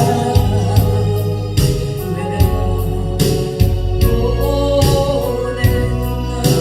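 Song accompaniment playing: a steady drum beat over a held bass line and sustained electronic organ or keyboard chords.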